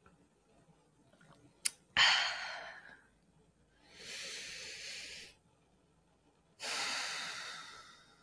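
A woman breathing into a close microphone after a sip of tea: a small mouth click, then a sharp exhale about two seconds in that fades over a second, a steadier breath about four seconds in, and a longer exhale near seven seconds.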